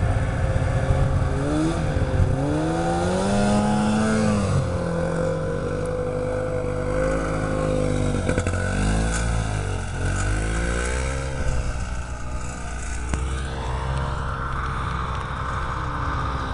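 Several snowmobile engines running and revving, their pitch rising and falling repeatedly as the machines speed up, slow down and pass.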